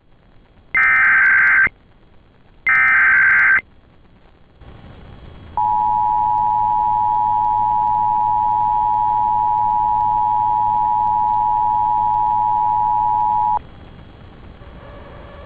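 Emergency Alert System signal: two short bursts of screeching data tones about a second apart, then after a short gap the steady two-tone attention signal for about eight seconds, cutting off suddenly, over a faint low hum.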